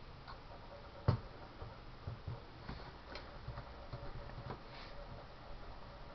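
Computer mouse clicking: one sharp click about a second in, then faint, scattered small clicks and ticks.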